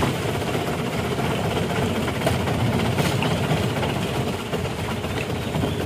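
Boat engine running steadily, with water rushing along the hull as the boat moves along a canal.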